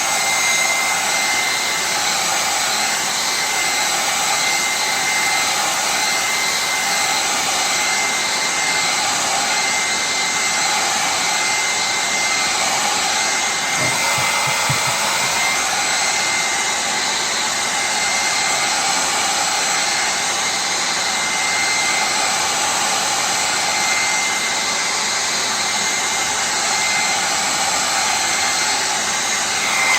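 Electric heat gun blowing steadily, heating the glass panel to soften the double-sided tape that holds it; a loud, even rush of air with a faint steady whine, switched off at the very end.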